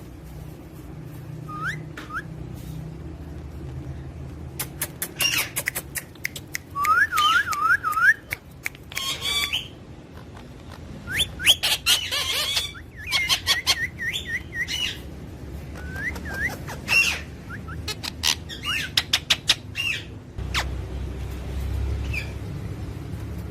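Parrots calling: a string of short, sharp chirps and squawks mixed with quick runs of rising whistled notes, several in a row, busiest in the middle of the stretch.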